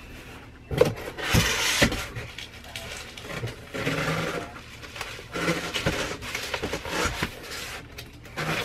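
Packaged craft kits and a cardboard box being rummaged through by hand: rustling in several bursts, with a few dull knocks in the first couple of seconds.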